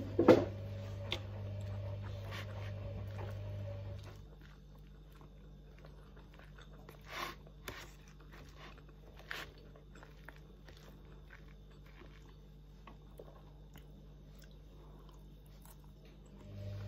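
Close-up chewing and biting of Pad Thai noodles, with a few sharp clicks of a metal fork against the plastic food container. A steady machine hum stops about four seconds in and comes back near the end.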